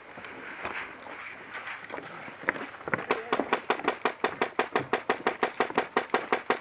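Airsoft gun firing a long full-auto burst of rapid, evenly spaced shots, about eight a second, starting about three seconds in.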